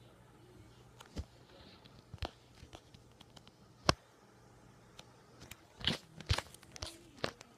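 Scattered clicks and knocks of fingers handling the recording device close to its microphone. The loudest is about four seconds in, with a cluster of them near the end.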